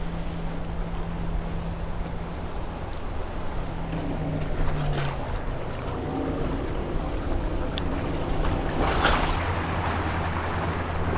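Wind on the microphone and waves washing against jetty rocks, under the low steady hum of a boat motor out on the water. A brief louder rush about nine seconds in.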